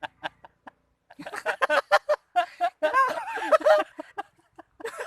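A man laughing in a run of short pitched bursts, strongest between about one and four seconds in, with a few more short bursts near the end.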